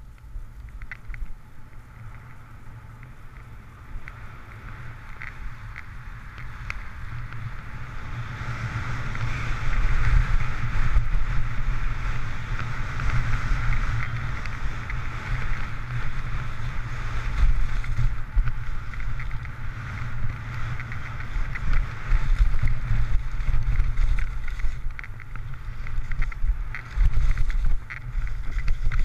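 Skis hissing over fresh snow on a downhill run, with wind buffeting the microphone, growing louder about eight seconds in.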